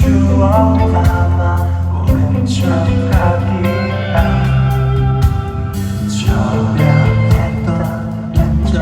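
Live indie rock band playing loud, with drums striking at a steady beat under a sustained bass line and guitars, and a singing voice over them.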